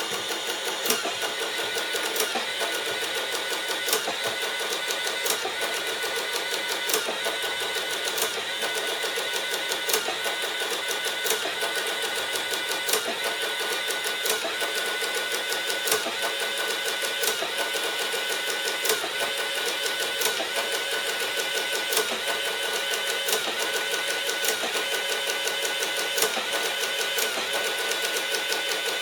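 Sharp XE-A107 cash register's built-in receipt printer printing a long report without a break, with a light click about every second and a half. The printing follows pressing subtotal in the Z/PGM key position, the step that clears the register's P error.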